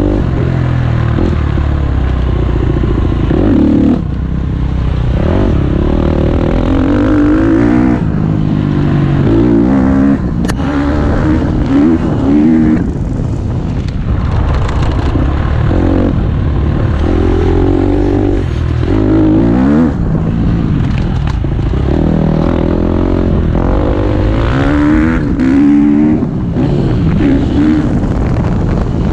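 KTM 250 SX-F dirt bike's single-cylinder four-stroke engine under way, revving up and dropping back again and again as the rider works the throttle and gears.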